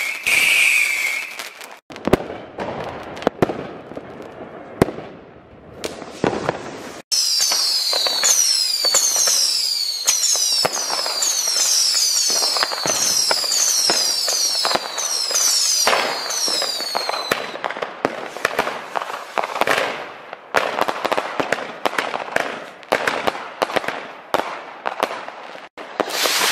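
New Year's Eve fireworks going off: a stream of sharp bangs, pops and crackle. In the middle, for about ten seconds, a dense run of falling whistles from many whistling fireworks overlaps the bangs.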